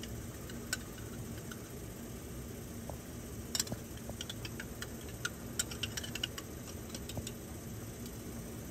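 A spoon clicking and scraping against a glass jar as Serrano chillies are scooped out and dropped into a steel pot, the small clicks coming in a run through the middle. Under it, a steady hum and hiss from the gas stove heating the pot.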